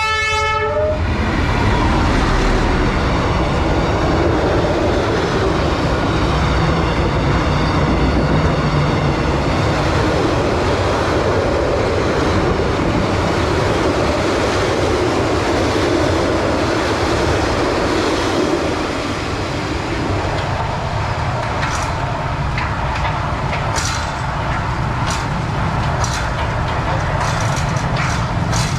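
Train passing through a level crossing: the horn's long blast cuts off about a second in, followed by the loud, steady rumble and rattle of the cars going by. The rumble eases after about 19 seconds, and a series of sharp clicks follows near the end.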